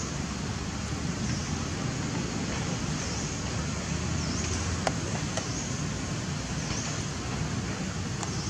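Steady outdoor background rumble, with faint high chirps about once a second and two short sharp clicks about five seconds in.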